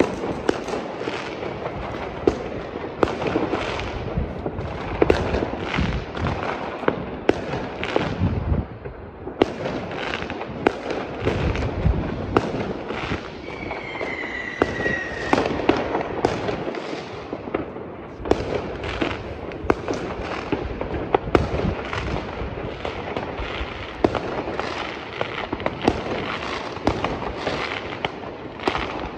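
Fireworks and firecrackers going off all around in a dense, near-continuous run of bangs and crackles, with one whistle falling in pitch about halfway through.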